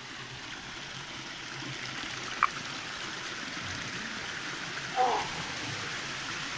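Shallow water trickling and running over stones in a small channel, a steady hiss. A single sharp tick sounds about two and a half seconds in, and a short call about five seconds in.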